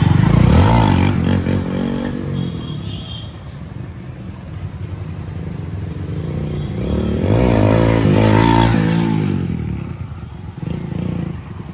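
Hero Splendor+ single-cylinder motorcycle engine accelerating hard away near the start, then fading. It rises again about seven seconds in, the pitch climbing and falling through the gears, before dying away. The bike is on a test run with newly fitted clutch plates.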